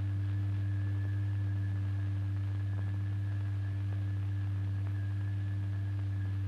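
Steady low electronic hum of the sine tone that drives the vibrating fluid in a cymatics experiment, with a faint higher whistle above it and a faint pulsing about twice a second.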